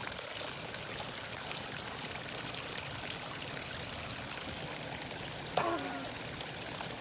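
Water rushing steadily out of a hole in the ground: a wet-weather spring overflowing after extreme rain. A short pitched sound breaks in about five and a half seconds in.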